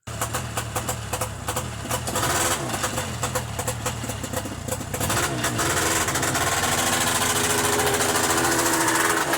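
Buran snowmobile engine running under way, its pitch climbing as it speeds up from about halfway through.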